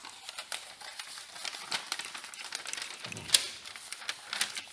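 Paper rustling and crinkling as a rolled-up paper circuit diagram is unrolled and flattened by hand, with a sharper crackle about three seconds in.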